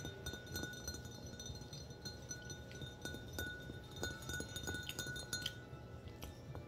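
A tall drinking glass of soda tapped and clinked by fingers and fingernails, each tap leaving a short glassy ring; the taps stop about five and a half seconds in.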